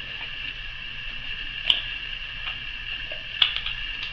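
A few small clicks and taps from hands handling craft supplies on a work table, two of them sharper, a little under 2 s in and again about 3.5 s in, over a steady background hiss.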